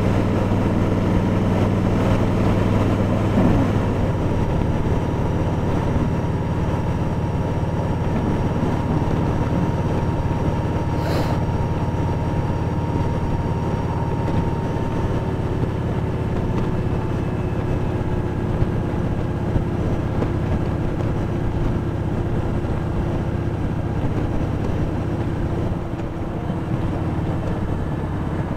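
Kawasaki Voyager 1700's V-twin engine running steadily on the move, with road and wind noise over it. The engine note shifts slightly about three and a half seconds in.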